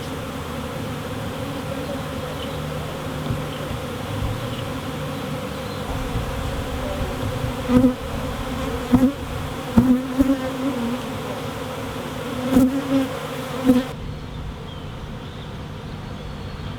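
Swarm of honeybees buzzing steadily. From about eight seconds in, several louder buzzes swell up and fade as single bees fly close by.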